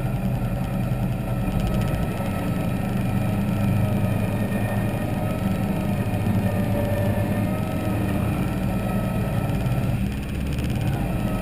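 Polaris RZR XP engine idling steadily, with a higher wavering whine over it, as its winch pulls a stuck Polaris Ranger out of a mud hole.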